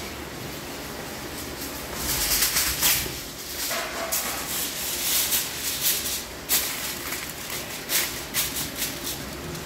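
Aluminium foil crinkling and crackling in irregular rustles as it is spread and tucked over a large paella pan, starting about two seconds in after a steady low hiss.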